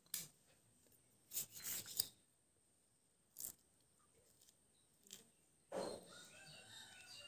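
Soft, brief wet tearing and squelching sounds, several times, as ripe mango skin is pulled off and the stringy pulp is squeezed by hand into a steel bowl.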